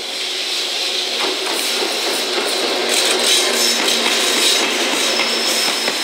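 JR Freight EF210 electric locomotive and Koki container flat wagons passing close by: wheels running over the rails, growing louder as the locomotive goes past, with sharp clacks at rail joints and a steady hum joining about halfway.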